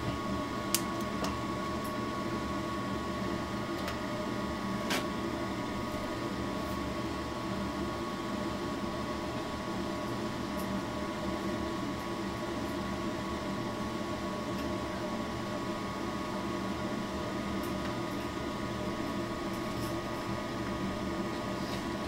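Gas furnace draft inducer motor running with a steady hum, plus a couple of faint clicks in the first few seconds. The inducer keeps running but the pressure switch does not close, so the furnace gets no further than the inducer stage: the fault the technician puts down to a stuck, open pressure switch.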